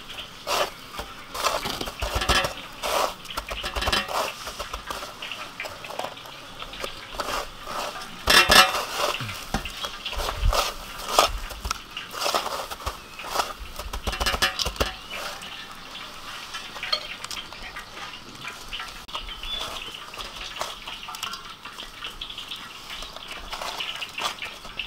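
Food-prep handling: repeated knocks and clinks against a metal tray and steel bowl, with the rustle of breadcrumbs as battered shrimp are pressed into the crumbs. The knocks come thickly at first and thin out over the second half.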